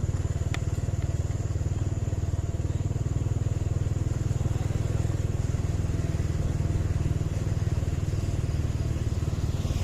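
A heavy engine running at a steady idle, with a deep, even, pulsing rumble and one short click about half a second in.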